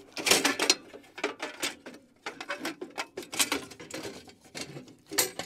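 Hand tools clicking and scraping on the tractor's parts in quick, irregular bursts while working at a stuck fastener in a cramped spot.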